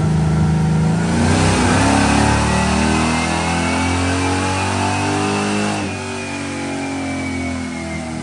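Chevrolet C10's 383 small-block V8 making a full-throttle pull on a chassis dyno: revs climb steadily for about five seconds, then fall away as it coasts down, with a thin whine rising and falling alongside.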